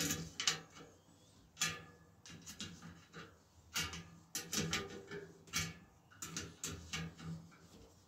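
Spoke key clicking onto and turning spoke nipples on a rear wheel, with irregular metallic clicks and scrapes as the spokes are tensioned and gloved hands brush and squeeze them.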